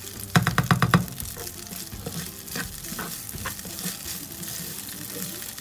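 Basmati rice and chickpeas toasting in a non-stick frying pan while being stirred with a spatula: a steady sizzle with scraping and scattered clicks. Near the start comes a quick run of about eight loud scrapes or knocks of the spatula against the pan, the loudest part.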